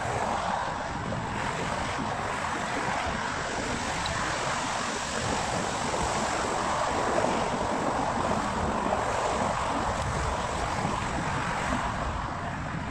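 Steady rush of wind over the microphone mixed with the drone of road traffic on the lanes alongside.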